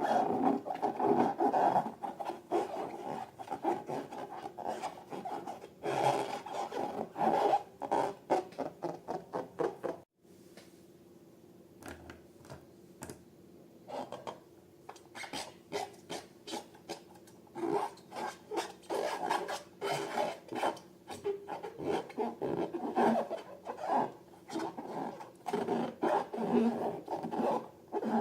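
Rubbing and dense crackling from balloons and slime being handled. The sound cuts off abruptly about ten seconds in and comes back quieter, then builds up again.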